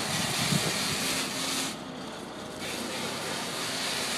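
Forklift running steadily: a broad hiss with a faint low hum, dipping a little in loudness for about a second midway.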